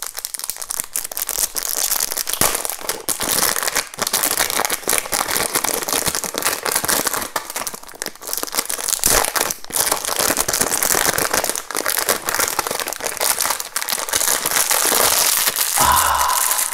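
Thin protective plastic film being peeled off the faces of a new 5x5 speed cube, crinkling and crackling continuously.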